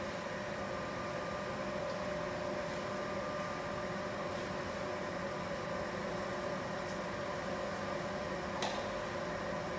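Laser marking machine running while it marks the inside of a stainless steel pot: a steady mechanical hum with a constant whine, and one short click near the end.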